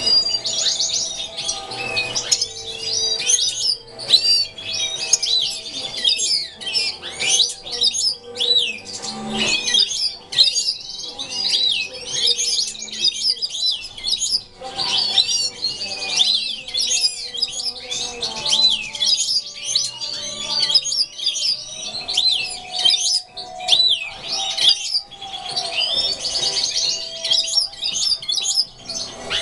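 A flock of European goldfinches chirping and twittering in quick, overlapping calls and song phrases that run on without a break.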